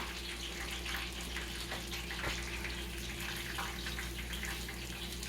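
Breaded chicken drummies frying in oil: a steady sizzling hiss with scattered crackles, over a low steady hum.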